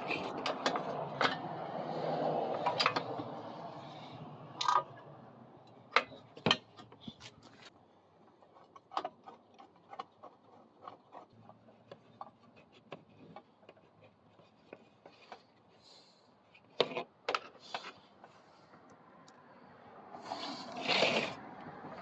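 Scattered sharp clicks, knocks and scrapes of hand tools and metal parts being handled while a recoil pull-starter housing is fitted back onto a small single-cylinder engine. There is a brief louder rustling, scraping stretch near the end.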